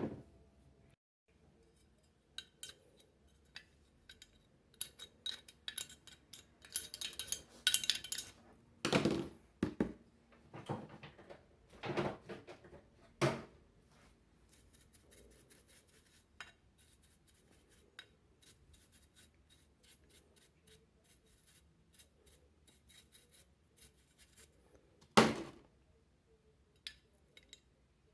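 Scattered metallic clinks and scraping of a tool against a fan motor's metal end housing as the bushing seat is cleaned of dirt, with a few louder knocks.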